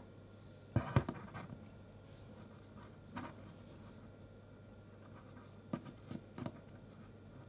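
Vinyl Funko Pop figures set down and turned by hand on a desk: two light knocks about a second in as they go down, then a few soft taps and scrapes of their feet on the desktop.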